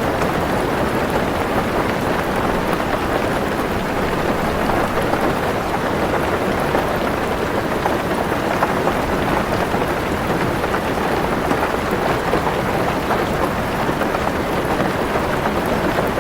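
Heavy rain falling steadily on a car roof and windows, heard from inside the car as an even, unbroken patter.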